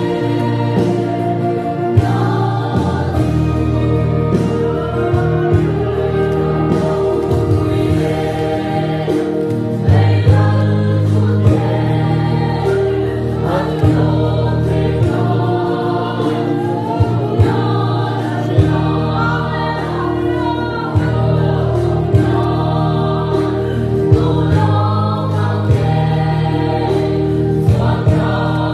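Mixed church choir singing a Mizo gospel song in several parts, women's and men's voices together. Sustained low bass notes that change every couple of seconds and short sharp hits run under the voices.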